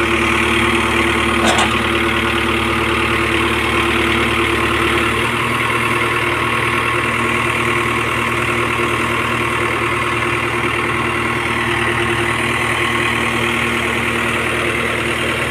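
Case 851EX backhoe loader's diesel engine idling steadily, with one short click about a second and a half in.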